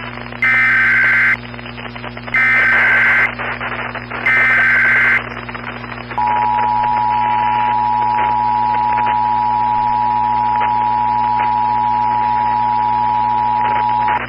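Emergency Alert System tones: three one-second bursts of SAME header data warble, evenly spaced, then the two-tone EAS attention signal held steady for about eight seconds. Underneath runs a constant background of static hiss and hum.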